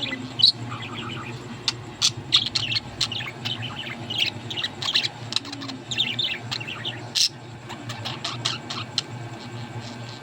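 Pet budgerigars chattering in quick short chirps, with scattered sharp clicks mixed in.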